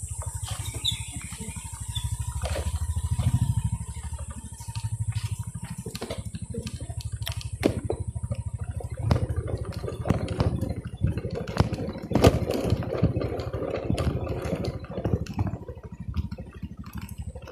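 Motorcycle engine running at low speed, with many knocks and rattles. A steady high hiss fades out about halfway through.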